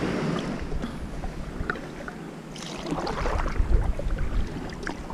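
Kayak paddle strokes: the blades of a double-bladed paddle dipping and water splashing and dripping off them beside an inflatable kayak, busier splashing from about halfway through. Low wind noise on the microphone underneath.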